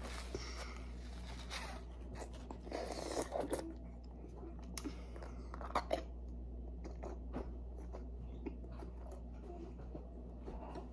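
A child eating lychee jelly pudding: soft chewing and wet mouth sounds with scattered small clicks, a few louder ones about three and six seconds in, over a low steady hum.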